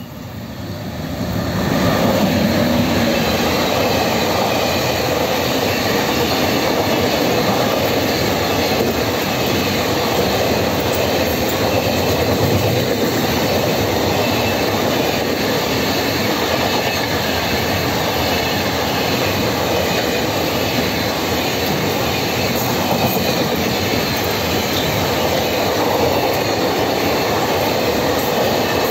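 Freight train of boxcars behind a locomotive passing close by: the sound grows quickly over the first two seconds as the locomotive arrives, then holds as a steady rumble of wagon wheels running on the rails.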